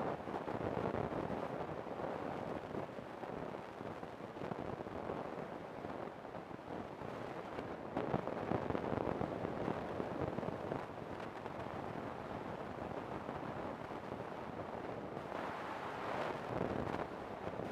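Wind rushing and buffeting on the microphone, a steady noise that swells and eases.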